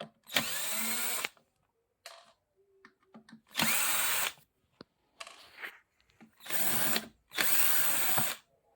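Electric screwdriver spinning in short runs of under a second each, about five in all, backing the screws out of a home theater's audio board.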